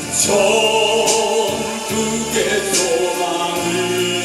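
Gospel song played on an electronic keyboard: sustained chords with light percussion strokes.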